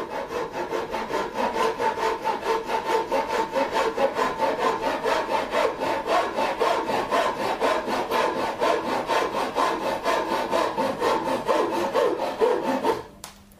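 Japanese pull saw cutting through the tip of a yew bow in quick, even strokes. The sawing stops abruptly near the end as the cut goes through.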